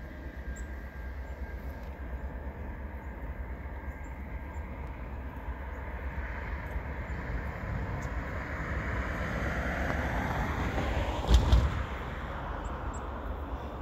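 Low steady rumble, with the noise of an unseen vehicle passing: it swells gradually and then fades away, loudest about eleven seconds in, where a brief loud burst stands out.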